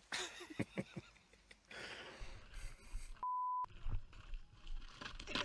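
A short, steady electronic bleep tone about three seconds in, lasting under half a second. Before it come a few faint knocks and a soft rushing noise.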